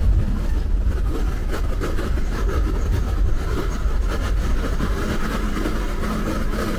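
Bus driving on a highway: steady engine and road rumble with rattling noise, easing slightly in level toward the end.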